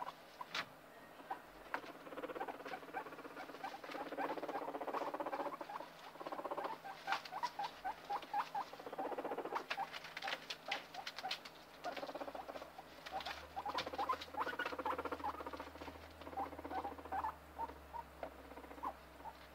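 Guinea pig eating right next to the microphone: many quick, crisp crunching clicks, with spells of rustling in the shredded-paper bedding.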